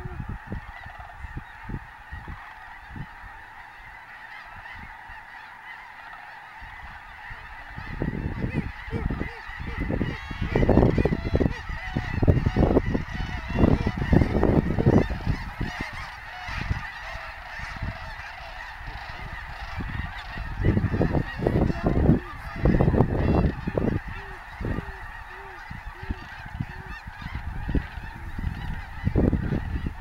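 A large flock of snow geese in flight, a dense chorus of many birds honking at once without a break. From about eight seconds in, low gusty rumbles come and go over it.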